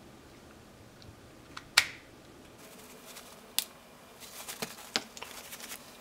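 Sharp plastic clicks and light handling noise as parts of a Toyota Corolla turn signal switch assembly are fitted back together. The loudest click comes about two seconds in, another a couple of seconds later, then a few smaller clicks with some rustling near the end.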